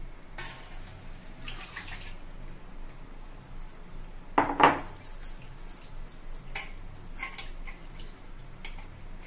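Washed, soaked poha (flattened rice) being strained in a stainless steel colander over a steel plate: water drains and drips through, with scattered clinks of steel on steel. The loudest event is a single sharp clink about halfway through.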